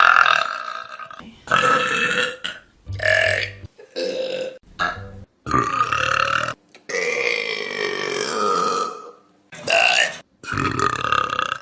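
Loud human burps, about nine in a row with short breaks between them, including one long drawn-out burp of over two seconds in the middle.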